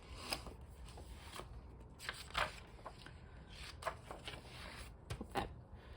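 Paper planner pages being handled: faint rustling of sheets with several scattered light clicks and taps as pages are moved about.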